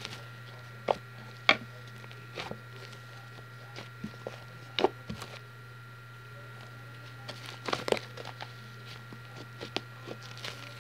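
Fluffy slime being kneaded and folded by hand to work in colouring, giving scattered sharp clicks and pops at irregular intervals, over a steady low hum.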